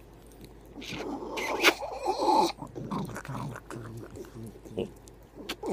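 Small dog making grumbling growls that waver up and down in pitch, starting about a second in, mixed with short wet smacks of licking and kissing.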